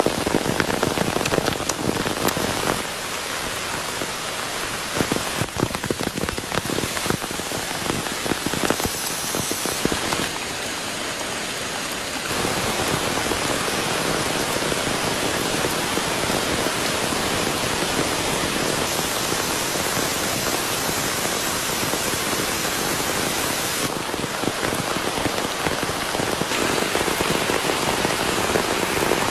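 Rain falling steadily, a dense patter of drops over an even hiss, shifting abruptly in level and tone several times.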